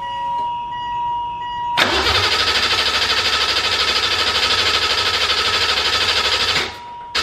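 BMW M30B35 3.5-litre straight-six with individual throttle bodies being cranked over by its starter on a first start attempt, an even pulsing churn for about five seconds that stops without the engine running, then starts cranking again at the very end. Before the cranking, and briefly in the pause, a steady high electronic tone with intermittent beeps.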